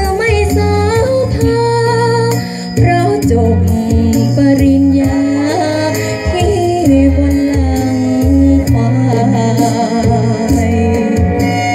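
A young female singer singing a luk thung song into a microphone, her voice wavering with vibrato, over an accompaniment with a strong bass, amplified through stage loudspeakers.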